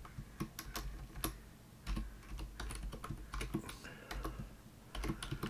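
Typing on a computer keyboard: single keystrokes at an irregular, unhurried pace, a few clicks a second at most.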